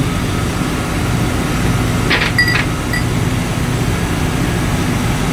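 Steady drone of running machinery in a ship's engine room, with a constant low hum. A brief high-pitched sound cuts through about two seconds in.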